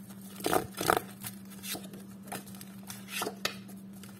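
A handful of light, irregular clicks and taps, the loudest about half a second and a second in, over a steady low hum.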